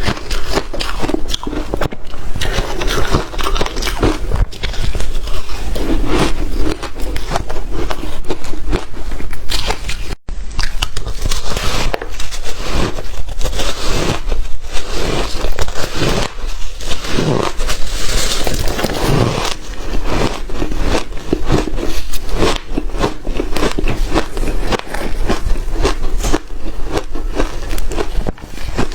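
Hard ice being bitten and chewed close to the microphone: loud, dense, irregular crunching and crackling, broken by a brief gap about ten seconds in.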